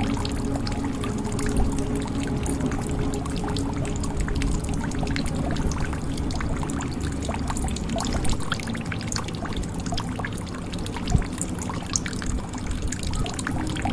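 Water pouring and dripping into a jug: a steady watery splashing with many small drop clicks scattered through it.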